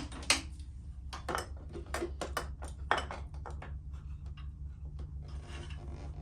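Light metallic clinks and taps of tools and exhaust hardware being handled, several in the first three seconds and sparser after, over a low steady hum.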